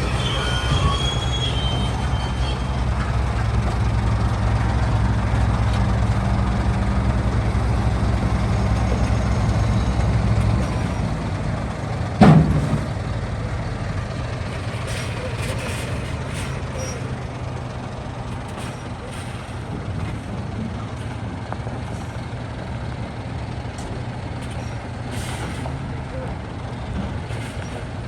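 Heavy-haul truck's diesel engine running steadily, with a high squeal in the first few seconds. About ten seconds in the engine note drops off. A moment later comes a single short, loud blast falling in pitch, and then the truck runs on more quietly.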